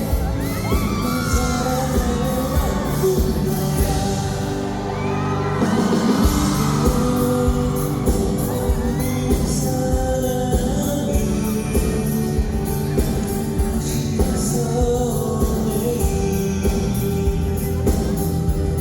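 Live pop band playing with a steady beat, with a singer's voice gliding over it, echoing in a large hall.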